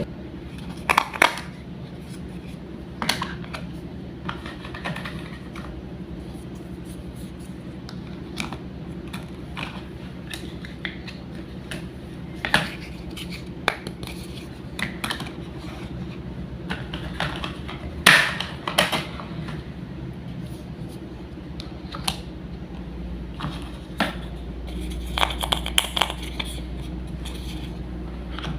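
Wooden toy food and a toy knife clicking and knocking as the pieces are handled and cut apart, as scattered sharp taps, some in quick clusters, over a steady low hum.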